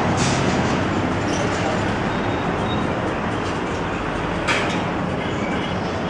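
Steady outdoor rumble and hiss, with one sharp click about four and a half seconds in.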